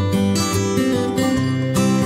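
Background music: acoustic guitar strummed in changing chords.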